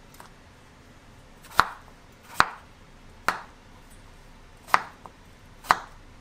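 Chef's knife chopping peeled potatoes on a bamboo cutting board: five sharp knocks of the blade on the board, roughly a second apart.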